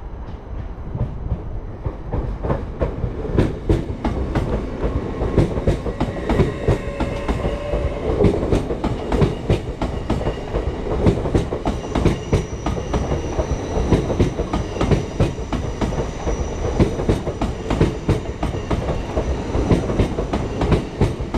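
Electric train running close by on the rails, its wheels clattering with a steady rumble and many short knocks. A faint high whine joins about halfway through.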